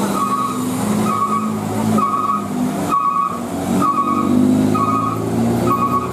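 Hino truck's diesel engine pulling under load, its pitch rising and falling, while a two-tone electronic beep repeats about once a second; a steady hiss of rain lies underneath.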